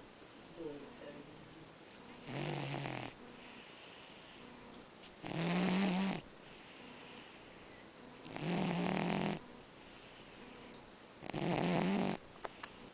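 A big fat domestic cat snoring loudly in its sleep: four snores about three seconds apart, each lasting about a second, with softer breathing in between.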